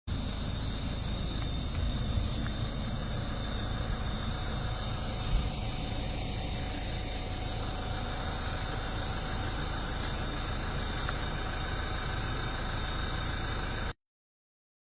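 Steady high-pitched insect drone in several even tones, over a low rumble, with a single brief thump about five seconds in; the sound cuts off abruptly near the end.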